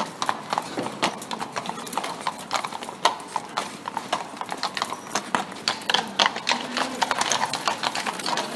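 Horse hooves clip-clopping on cobblestones as a horse draws a carriage: a quick, uneven run of sharp hoof strikes.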